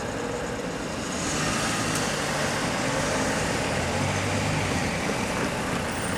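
A motor vehicle's engine running, with steady rolling noise; it gets louder about a second in.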